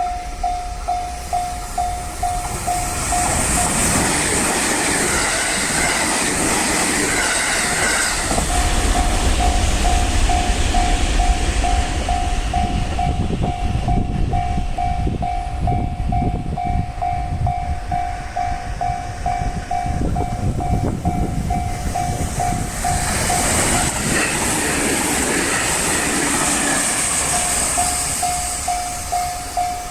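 Level-crossing warning bell ringing in an even, repeating ding while a train runs over the crossing, wheels rumbling and clattering over the rail joints. The bell is drowned out twice when the train noise swells, with a loud hiss from the wheels and rails.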